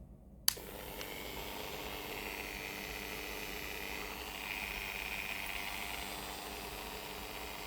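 Corded handheld rotary tool switched on with a click about half a second in, then running steadily at speed with an even motor whine.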